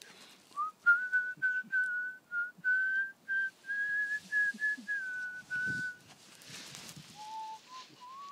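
A person whistling a tune: a run of short notes at about the same pitch, breaking off about six seconds in. A rustling noise fills the break, then a few lower notes follow.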